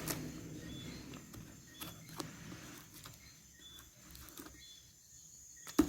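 Faint scraping and a few sharp clicks as a knife is worked on the taped seams of a cardboard shipping box, with the loudest click near the end. Short, high chirps repeat faintly in the background.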